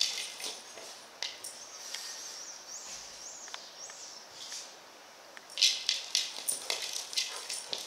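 A Rottweiler nosing and mouthing a hard plastic ball on grass: a quick run of sharp clicks and clinks near the end. A bird chirps a few times in the middle, each call rising and falling.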